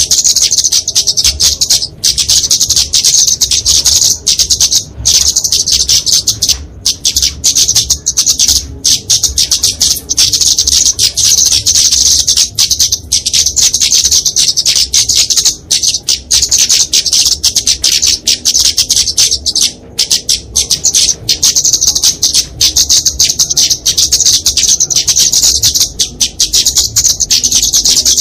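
Flowerpecker (kemade) calling in rapid, high-pitched chattering notes, repeated almost without a break: the bird's fighting call.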